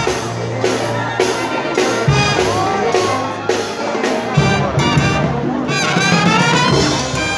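Brass band playing, trumpets and trombones over drums keeping a steady beat of about two a second.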